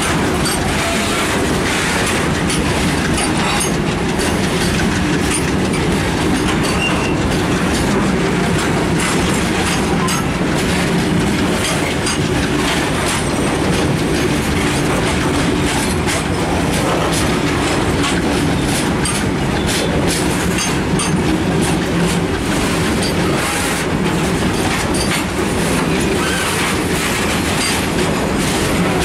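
A long, heavily loaded freight train's covered box wagons rolling past at close range: a steady rumble with the wheels clicking over the rail joints.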